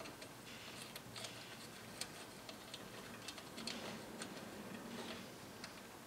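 Light, irregular metal clicks and ticks, a few each second, as a hex key turns the spring bolt of a BodyFloat Kinekt suspension seatpost and the coil spring and small parts are handled.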